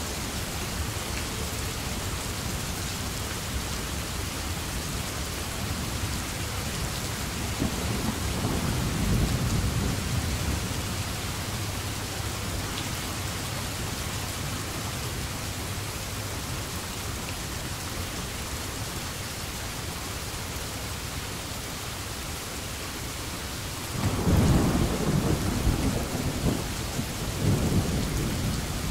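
Steady rain with thunder rumbling twice: a low rumble swelling and fading about eight seconds in, then a louder rumble that breaks in suddenly about twenty-four seconds in and rolls on.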